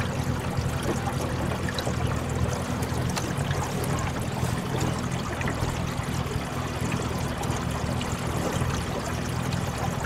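Water streaming and trickling along the hull of a small aluminum boat as it moves slowly through calm water, with a steady low hum beneath.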